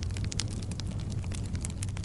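Fire crackling: irregular sharp pops and snaps over a steady low rumble of burning.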